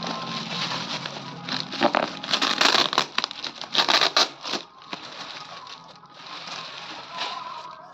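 Plastic packaging crinkling and rustling as it is handled, loudest in a burst of crackles about two to four and a half seconds in, over background music.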